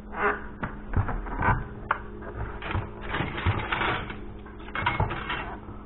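Hands kneading a mashed-potato dough in a plastic mixing bowl: irregular scuffing and patting, with a few sharp clicks.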